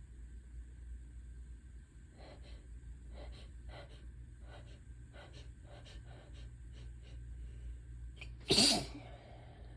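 A person's quick hitching breaths, a dozen or so short catches, many in pairs, building up to one loud sneeze about eight and a half seconds in.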